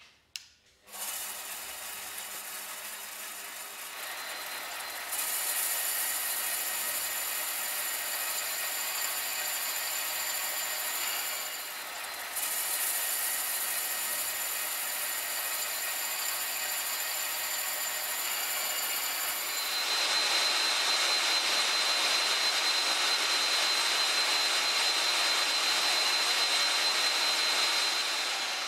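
A switch clicks on the EFCO portable gate-valve grinding machine, and its electric motor starts. It runs steadily with a high whine as the rotating head grinds the valve's seal seat. The grinding hiss grows louder about two-thirds of the way through.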